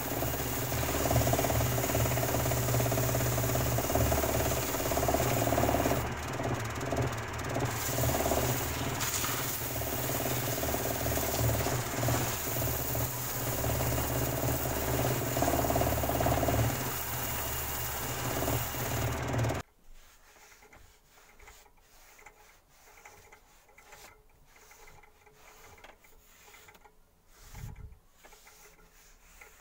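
An electric woodworking machine runs steadily with wood being worked against it, and the rough cutting noise swells and eases at times. It stops abruptly about two-thirds of the way through. After that there are only faint light taps and clicks of handling, with one soft low thump near the end.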